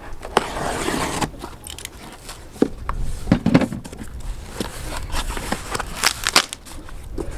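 A cardboard shipping box being opened and unpacked: flaps and packing material rustling and crinkling, with scattered knocks and scrapes as the parts inside are handled.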